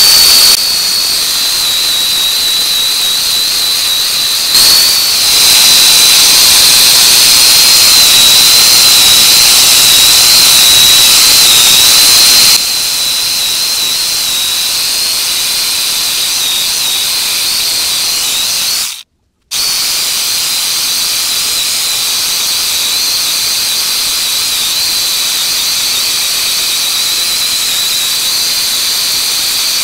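A 650-watt angle grinder fitted with a chainsaw converter attachment, running at high speed: a steady high-pitched whine over a hiss. It is louder for the first dozen seconds and cuts out briefly about 19 seconds in.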